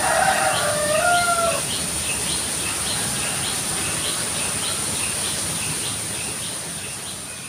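Rooster crowing: the end of one long crow, held and then dropping at the close, stopping about a second and a half in. Repeated short high chirps and a steady high-pitched drone run behind it.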